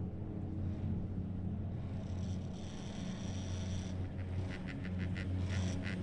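High-speed detachable chairlift running: a steady low hum, with a high whine about two seconds in and a quick rattling clatter from about four and a half seconds.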